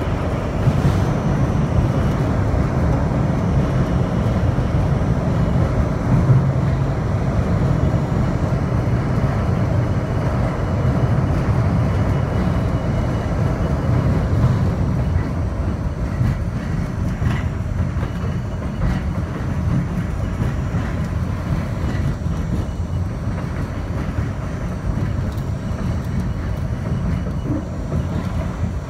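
R42 subway train running at speed, heard from inside the front car: a steady rumble of wheels on rail and running gear, with scattered faint clicks.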